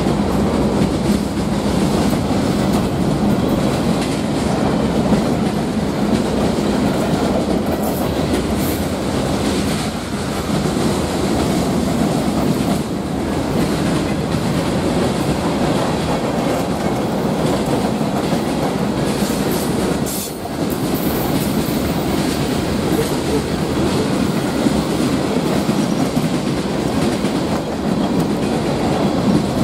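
A CSX freight train's cars (steel gondolas, covered hoppers and tank cars) rolling past at close range: steady, loud noise of steel wheels running on the rails. A low hum, from the locomotive that has just gone by, fades out about a second in.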